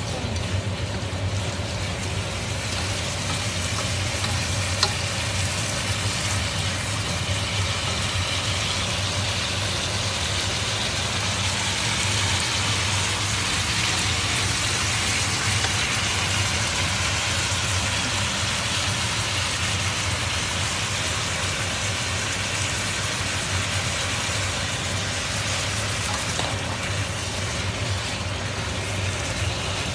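Wild boar meat sizzling steadily as it is stir-fried in a nonstick wok and turned with cooking chopsticks, over a steady low hum.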